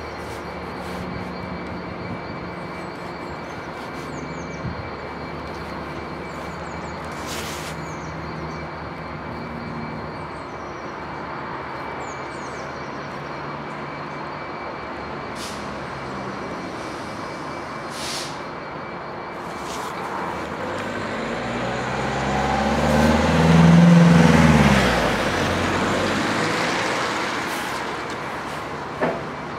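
Diesel engines of Class 66 locomotives, two-stroke V12s, running with a steady low hum as the train creeps by at walking pace. About two-thirds of the way through, a louder vehicle passes close, its drone swelling and then falling in pitch.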